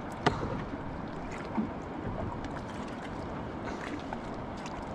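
Steady wash of water and wind around a small drifting boat, with one sharp click about a third of a second in and a few faint ticks after.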